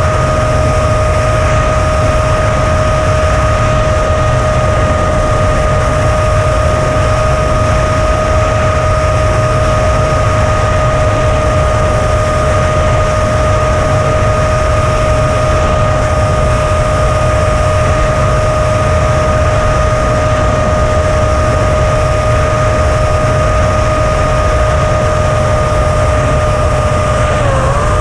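FPV racing quadcopter's motors and propellers whining at a steady pitch, heard through the onboard camera's microphone over a heavy rush of wind and vibration. The whine dips briefly and then settles a little lower near the end as the throttle changes.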